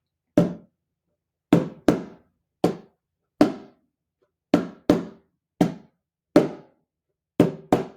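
A drum struck in a slow, uneven, freely improvised beat: eleven strikes, some single and some in quick pairs, each with a short low ring that dies away.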